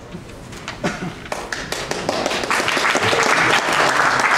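Audience applauding: a few scattered claps at first, building to steady applause about two seconds in.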